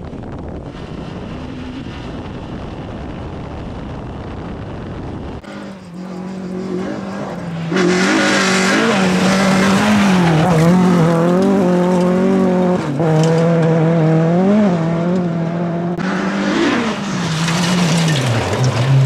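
Renault Clio F2000 gravel rally car. It opens with a steady rush of wind and engine noise on its onboard camera. About five seconds in, the sound cuts to the car's engine heard from the roadside, revving hard as it passes close, with the pitch repeatedly climbing and dropping through gear changes and lift-offs. It ends low as the car slides through a gravel corner.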